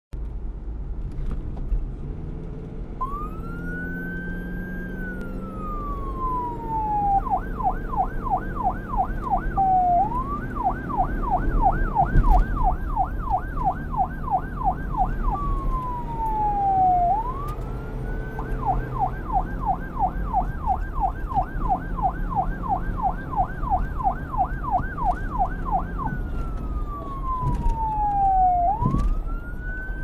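Police car siren alternating between a slow wail, rising then gliding down, and a fast yelp of about four sweeps a second, over a steady low rumble. The siren starts about three seconds in.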